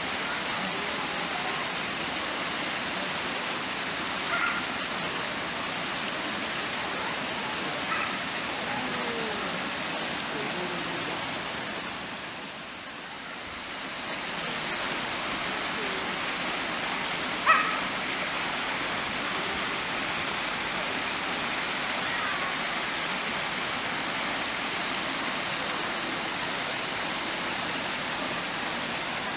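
Steady rushing noise that dips briefly about halfway through, with three short high chirps; the loudest comes a little past the middle.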